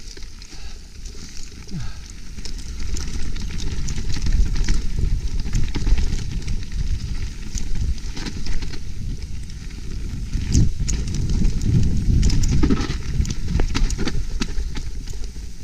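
Mountain bike riding down a rough dirt trail: a steady rumble of tyres and air on the camera microphone, with frequent sharp clicks and knocks from the chain and frame rattling over bumps. The rumble grows louder over the first few seconds as the bike picks up speed.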